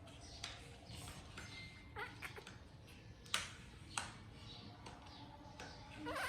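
A few scattered light clicks and taps, with a short squeak near the end.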